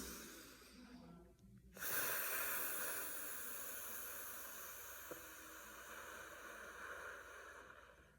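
A woman breathes in quietly, then lets out one long exhale on an 'ffff' sound, air hissing between her upper teeth and lower lip for about six seconds and slowly fading: the 'F breath' of a laughter yoga breathing exercise.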